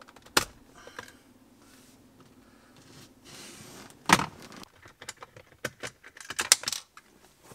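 Hard plastic console parts and a metal mounting bracket clicking and rattling as they are handled and pulled apart. There is a sharp click about half a second in, another about four seconds in, and a quick run of small clicks and rattles near the end.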